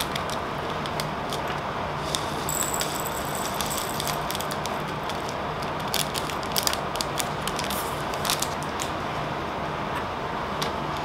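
A small plastic bag of round resin diamond-painting drills crinkling as it is opened, then the drills clicking and rattling into a small plastic storage pot, many quick ticks for a few seconds from about six seconds in, over a steady room hum.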